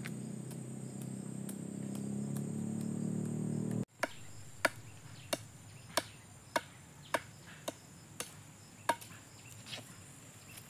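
A high, steady insect drone runs throughout. A low droning rumble swells over the first few seconds and cuts off abruptly. Then comes a regular series of sharp knocks, about ten of them, roughly one every half second or so.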